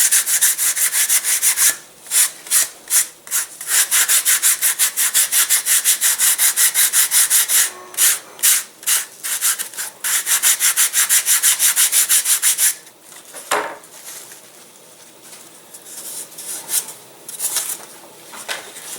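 Hand sanding of hardened CA-soaked glass cloth over a balsa wing joint: quick, even back-and-forth sandpaper strokes with a few short pauses, going much quieter and sparser about two-thirds of the way through.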